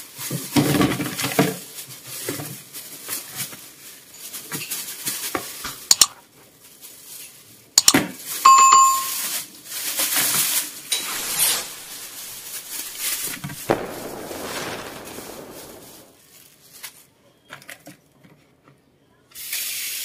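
Plastic bag rustling and the hard shells of steamed crabs knocking and clattering as they are tipped into a plastic tub in a steel sink. A short bell-like ding rings out about eight seconds in. Near the end, after a quiet moment, the kitchen tap starts running onto the crabs.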